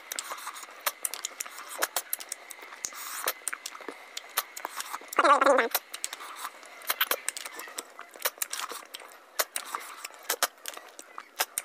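Close-miked eating sounds: many sharp wet clicks and smacks of the mouth chewing and sucking at snails and rice, with a brief voiced hum falling in pitch about five seconds in.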